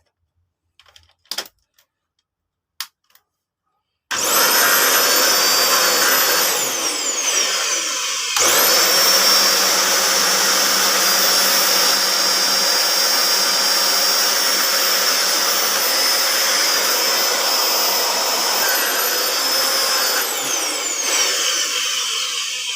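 Panasonic vacuum cleaner switched on after a few clicks. It runs with a loud rushing noise and high motor whine, drops out briefly and starts again at full speed, then winds down with a falling whine near the end. The motor gives off a burning smell and the repairer judges that it needs replacing.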